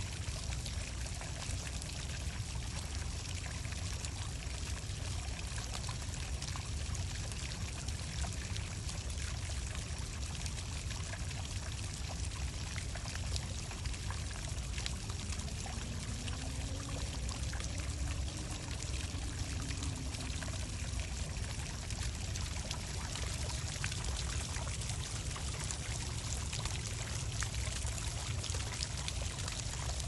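Small rock fountain: several low water jets splashing steadily onto stones.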